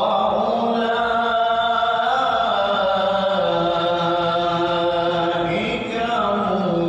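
A man's voice reciting the Qur'an in melodic chant into a handheld microphone. He holds long drawn-out notes that step and glide slowly between pitches, falling in pitch near the end.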